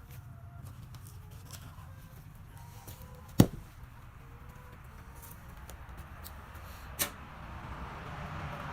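A low, steady rumble with two sharp knocks: a loud one about three seconds in and a fainter one about seven seconds in.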